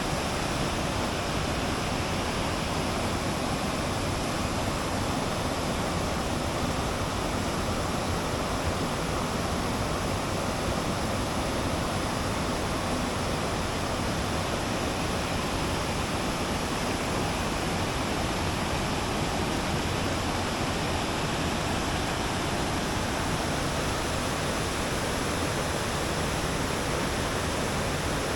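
Steady rushing water, an even, unbroken noise spread across low and high pitches.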